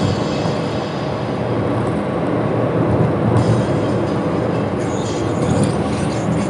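Steady rumble of a car driving at highway speed: tyre and road noise, heaviest in the low range, with no sudden events.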